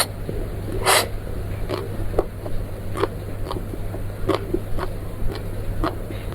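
Close-miked eating sounds: a bite about a second in, then a string of short clicks from chewing.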